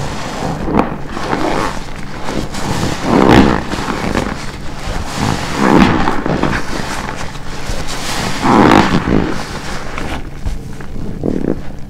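Wet black car-wash sponge being squeezed by hand, squelching: three loud squeezes a few seconds apart, with smaller squelches between them.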